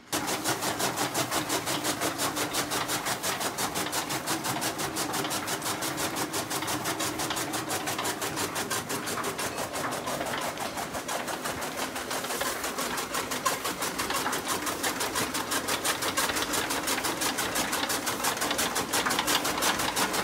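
Belt-driven chaff cutter chopping green fodder: a fast, even mechanical clatter of chops, several a second.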